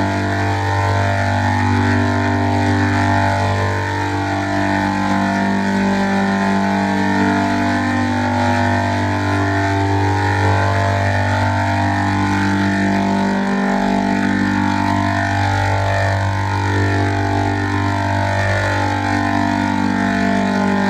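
A steady low droning hum with overtones that sweep slowly up and down, giving a whooshing, phasing effect. It continues unbroken, with only a brief dip in the lowest hum a little past the middle.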